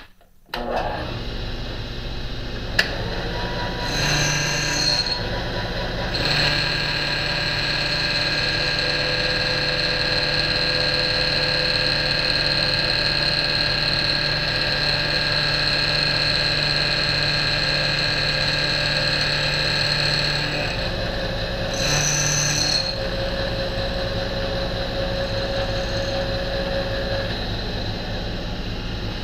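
RF-31 mill/drill starting up about half a second in and running steadily, its end mill cutting a metal mounting bracket. The cut is heard as a louder, harsher layer over the motor, briefly at about four seconds, then for about fourteen seconds, then once more briefly near twenty-two seconds.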